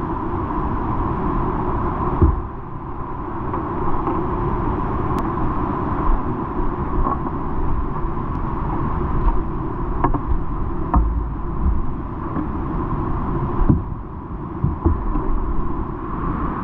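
Steady rush of whitewater rapids close around a kayak, with a few short knocks and low thumps on the camera.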